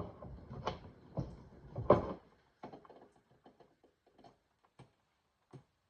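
A string of knocks and clicks from hands working on a washing machine hookup. They are louder and closer together over the first two seconds, then thin out to a few faint ticks.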